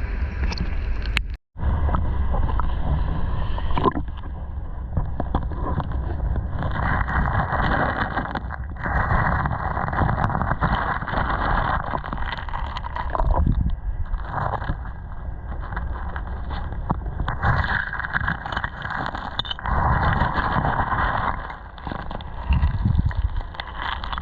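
Creek water sloshing and splashing in uneven surges, with wind rumbling on the microphone.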